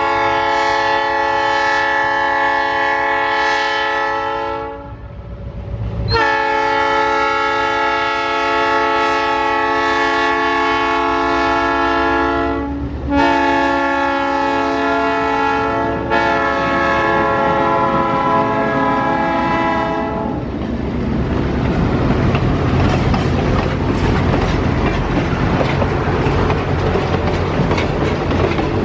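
Diesel locomotive horn sounding the long-long-short-long grade-crossing signal, each blast a steady chord. Then the locomotive and its passenger cars roll by close at hand, with a dense rumble and rattle of wheels on rail.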